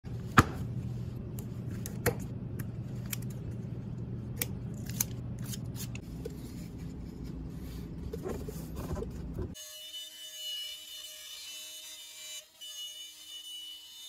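Wooden blank being handled and set down on a CNC router table: sharp wooden knocks and taps over a steady low hum, the loudest knock just under half a second in. About nine and a half seconds in it cuts abruptly to a steady, higher whine holding a few fixed tones, the CNC router spindle running as it cuts the block.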